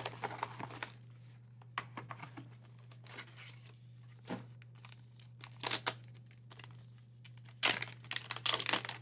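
Trading-card packaging being handled: crinkling plastic sleeve and pouch, rustled and pulled open in short bursts, with a denser run of crinkling and tearing near the end. A steady low hum runs underneath.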